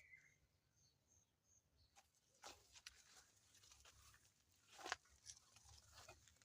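Near silence, broken by a few faint short rustles and scuffs; the clearest comes about five seconds in.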